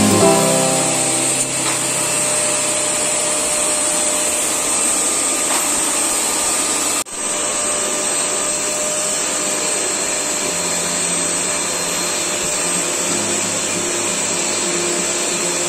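Forbes canister vacuum cleaner running steadily, its motor giving an even rushing noise with a high whine as it sucks through the floor brush and then through a small nozzle on a fabric cushion. The sound drops out for an instant about seven seconds in.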